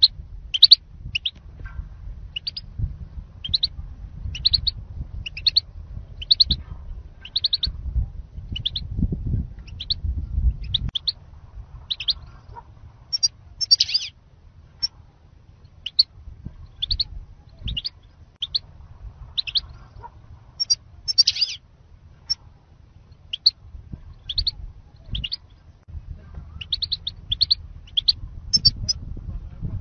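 European goldfinch giving short, high chirping calls over and over, about one or two a second, some in quick pairs, over a low rumble.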